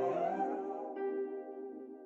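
Background music: gentle instrumental music with sustained notes that change about a second in.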